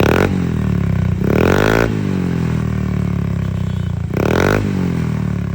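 Scooter exhaust on an Apido aftermarket pipe, its single-cylinder engine idling and being revved hard in three quick throttle blips: a short one at the start, a longer rise and fall about a second in, and another near four seconds in.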